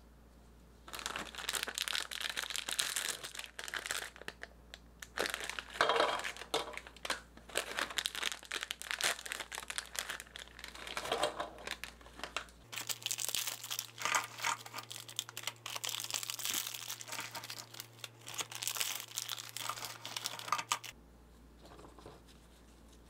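Foil Oreo cookie packets crinkling and crackling as they are handled and torn open by hand. The crinkling stops near the end.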